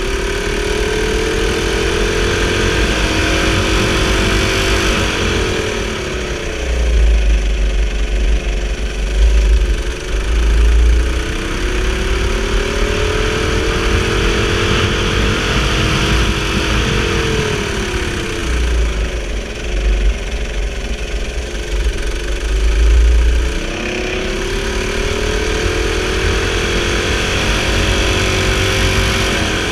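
Go-kart engine heard from the driver's seat. Its pitch climbs steadily under throttle and drops away when the driver lifts off, three times over. A heavy low rumble comes and goes while the engine is at its lowest.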